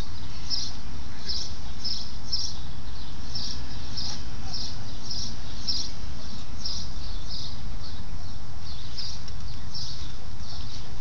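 Outdoor chirping: short high-pitched chirps repeating evenly a few times a second, over a steady low rumble.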